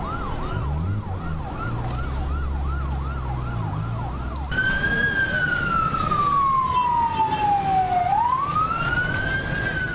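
Emergency vehicle sirens: a fast yelp rising and falling about three times a second over a low vehicle rumble, then, after an abrupt cut, a slow wail that falls for several seconds and rises again.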